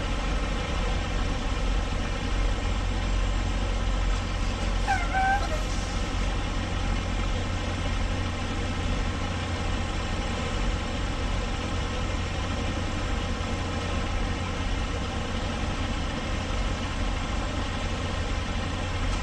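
Semi truck's diesel engine running steadily, a low hum heard from inside the cab, with a brief high squeak about five seconds in.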